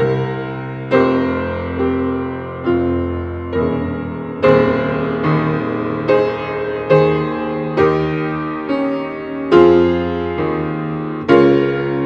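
Piano playing slowly, a chord struck about once a second and left to ring and fade.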